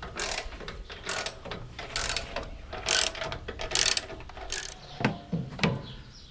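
Socket ratchet wrench clicking in short runs, about one stroke a second, as the hydraulic pump's mounting bolts are worked loose. A couple of sharper metal knocks come near the end.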